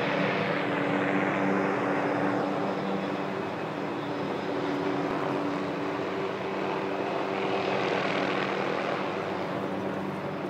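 Helicopter hovering close overhead: a steady drone of engine and rotors with a constant hum, easing a little midway and swelling again near the end.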